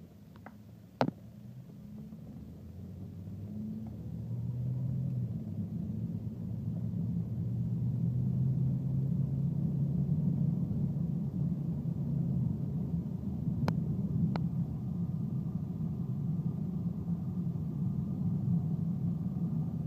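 Holden Commodore heard from inside the cabin: low engine and road rumble that grows louder over the first several seconds as the car pulls away and gathers speed, then runs steady. A sharp click about a second in, and two fainter clicks half a second apart about three-quarters of the way through.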